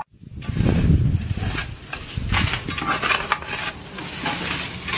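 Hands digging in garden soil among plant leaves, with a steady run of irregular scraping and rustling.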